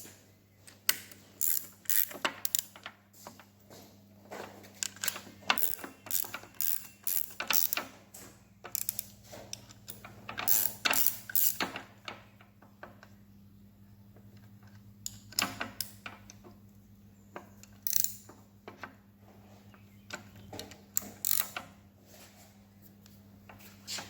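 Ratchet wrench clicking in irregular runs with metal tool clinks, busier in the first half and sparser after, as bolts are worked on the engine.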